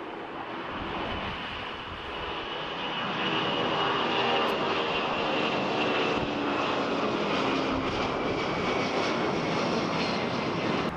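Twin-engine jet airliner climbing out after takeoff and passing overhead. Its engine roar grows louder over the first few seconds and then holds, with a high engine whine that slowly falls in pitch as it goes by.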